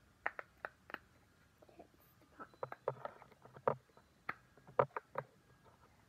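Silicone pop-it fidget toy having its bubbles pressed by finger: a string of short, sharp pops at an uneven pace, three at the start and more in clusters through the rest.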